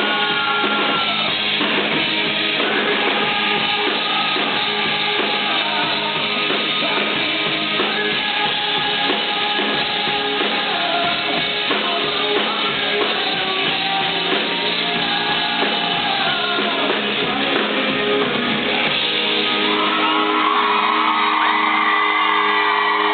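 Live rock band playing with a male lead singer, electric guitars and drums. About 19 seconds in, the drumming stops, a final chord rings on and the audience screams and cheers.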